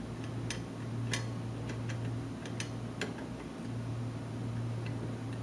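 Irregular light metallic clicks and ticks, about eight in all, as a small screwdriver drives mounting screws into the side of a 3.5-inch hard drive in its enclosure tray, over a steady low hum.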